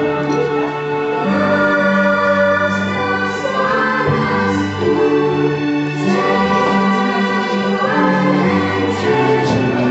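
Choral music: a choir singing slow, held chords that change about once a second.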